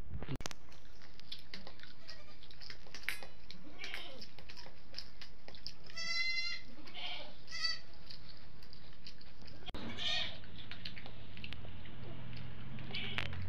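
A farm animal bleating: short calls about six, seven and a half and ten seconds in, over a steady hiss.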